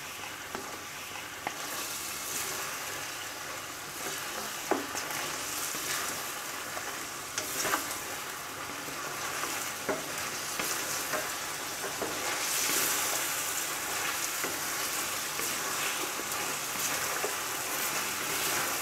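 Mutton pieces and ginger-garlic paste sizzling in hot oil in a karahi, stirred with a wooden spatula. A steady sizzle with a few faint clicks of the spatula against the pan.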